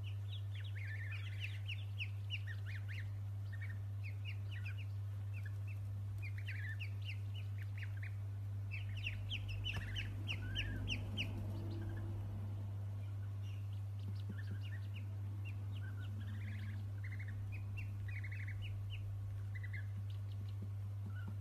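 Ducklings peeping: many short, high peeps coming in bursts, busiest near the start, around the middle and toward the end, over a steady low hum.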